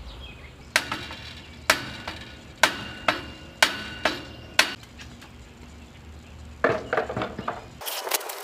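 Hammer blows on the metal basketball-hoop pole, about one a second, six strikes with a ringing tone after several of them, then a few lighter knocks near the end.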